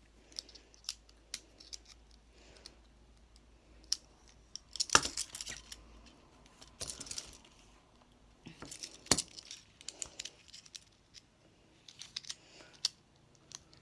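Cheap metal handcuffs being worked by hand: a run of sharp metallic clicks and short rattles as the cuffs are closed and opened, with the loudest clusters about five and nine seconds in.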